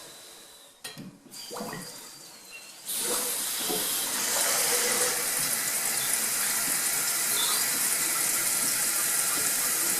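New toilet fill valve filling the tank. At first a faint hiss with a thin whistle and a few small knocks, then about three seconds in the flow jumps to a loud, steady rush of water that sounds like it is filling well.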